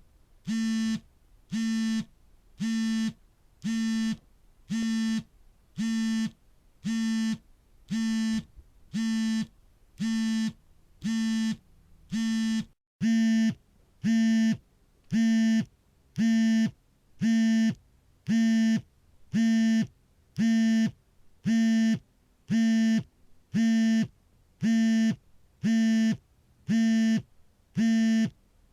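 Smartphone vibrating on an incoming call: short buzzes of about half a second, roughly one a second, in an unbroken steady rhythm at one even pitch. The buzzes get louder about halfway through.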